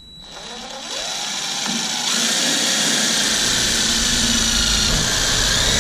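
DeWalt cordless drill driving a self-tapping screw into a steel cross piece. The motor speeds up over the first two seconds, then runs steadily with a high whine.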